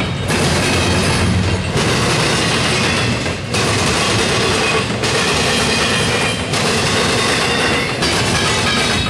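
Double-stack container well cars of a freight train rolling past: a steady rumble and clatter of steel wheels on the rails, with a brief lull about every second and a half.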